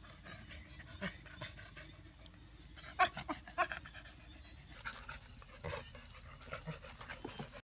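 Dogs breathing and sniffing close by: clusters of short, breathy puffs, the loudest a quick run of them about three seconds in.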